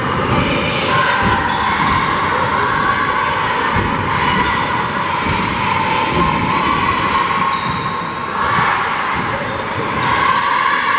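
Basketball game play on a hardwood gym court: the ball bouncing and players' feet hitting the floor, over a continuous crowd din echoing in the gym.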